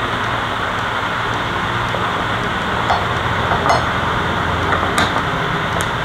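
A steady hiss, with a few faint ticks from about halfway on as a hand screwdriver turns the screws that secure the smart door lock's handles.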